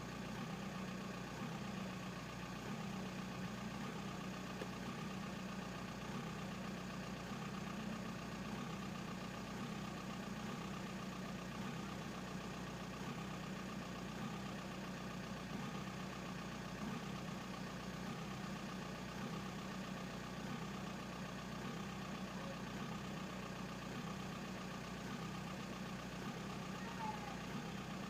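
Volkswagen AJM 1.9 TDI pumpe-düse four-cylinder diesel engine idling, with irregular low knocks, running on injectors the owner calls bad.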